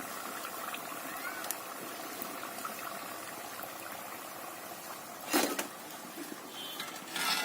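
Batuk, lentil fritters, deep-frying in hot oil: a steady sizzle, with two brief louder bursts about five and seven seconds in.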